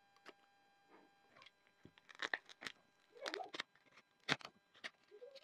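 Light clicks, taps and short scrapes of a smartphone and its parts being handled during a repair, the sharpest click about four seconds in.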